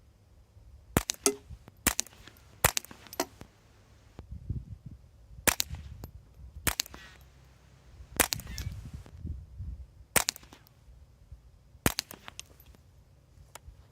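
Suppressed Ruger 10/22 Takedown .22 rifle firing CCI standard velocity rounds through a GPM needle point suppressor: about eight sharp, muffled shots, one to two seconds apart, over a low rumble.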